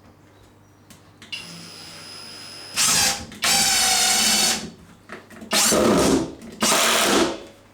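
Power drill running in several short bursts, the longest about a second, with pauses between them.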